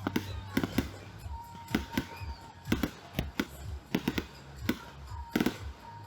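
Fireworks going off in an irregular string of sharp bangs and crackles, with a faint echo after the louder ones.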